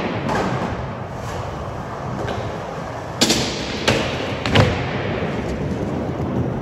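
Skateboard wheels rolling on smooth concrete, then three sharp clacks within about a second and a half, starting a little past three seconds in, as the board hits and slides on a concrete ledge.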